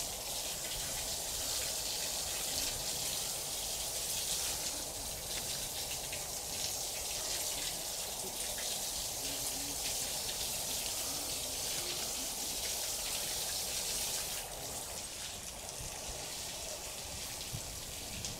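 Steady hiss of running water, easing a little about fourteen seconds in.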